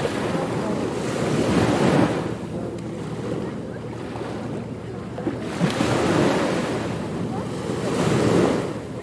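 Ocean waves breaking on a beach: a steady rush of surf that swells three times as waves come in and wash back.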